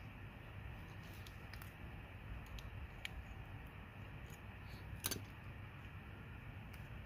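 A few light metallic clicks and taps as the brake pads, their spring and the retaining pins are handled and worked into a rear brake caliper. The sharpest click comes about five seconds in.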